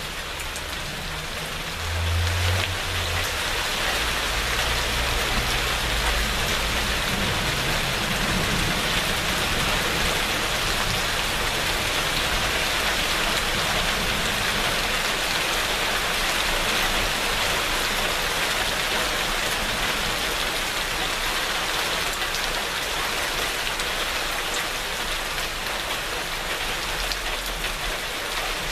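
Steady heavy rain pattering on surfaces, turning heavier about two seconds in. A low rumble of thunder sits under it for the first several seconds.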